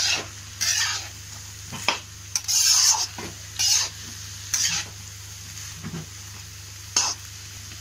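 Steel spatula scraping and tossing chopped vegetables around a kadai, in strokes about once a second, over a faint sizzle as they sauté in oil.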